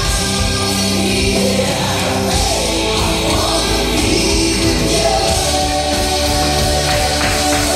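Loud music with a singing voice over a heavy bass line, playing without a break.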